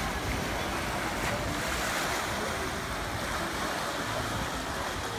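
Steady rushing and lapping of moving water in a water park's tube channel, an even wash of noise.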